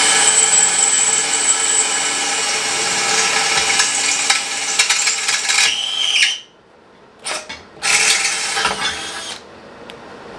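Electric drill boring holes into a car's metal radiator support cross member. It runs steadily with a high whine, slows and stops about six seconds in, then gives a short burst and a longer burst of drilling.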